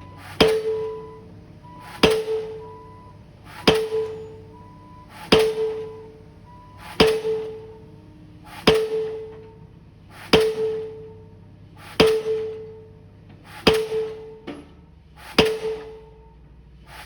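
Pile-driving hammer striking a pile in a steady rhythm, one blow about every 1.7 seconds, each blow followed by a brief ringing tone.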